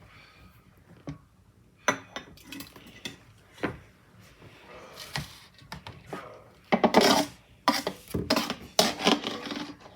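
Ladle clinking and scraping against a bowl while scooping: a string of separate knocks and clinks, busier in the second half.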